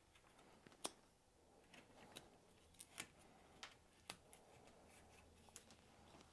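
Faint, crisp snicks of a carving knife slicing small shavings from a willow staff, several separate cuts a second or so apart.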